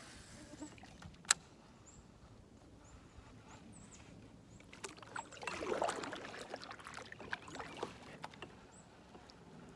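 Kayak paddle strokes splashing in still pond water, with water lapping against the plastic hull, the main stretch of splashing about halfway through. A single sharp click sounds about a second in.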